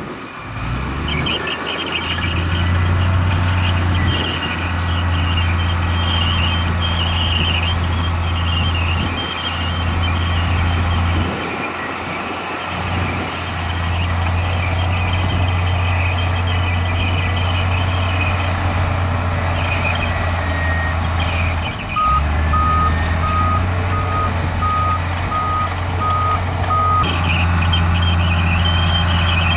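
Heavy diesel engines of a Komatsu D58E bulldozer and a dump truck running steadily under work, dipping briefly a few times. About three quarters of the way through, a reversing alarm gives a short run of evenly spaced beeps.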